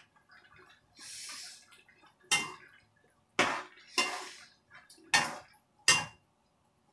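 Metal spoon clinking and scraping against a steel frying pan while stirring a chicken curry, with a short hiss about a second in and about five sharp knocks in the second half.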